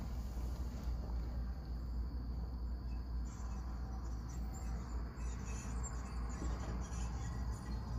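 Crickets chirping in short high-pitched bursts from about three seconds in, over a steady low rumble.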